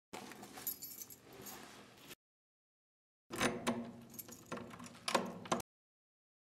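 Keys jangling and clinking in the hands, then, after a cut to silence, a metal lever door handle being worked, its latch clicking and rattling.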